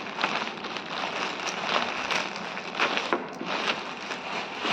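Packaging crinkling and rustling as it is handled and opened, with many small sharp crackles.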